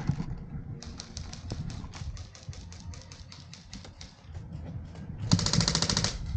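Airsoft guns firing full-auto: a long string of sharp clicking shots, about ten a second, then a louder, faster burst of just under a second near the end.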